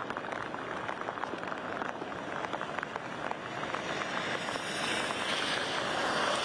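Rain falling on a street, with the hiss of car tyres on the wet road growing louder in the last couple of seconds as cars approach.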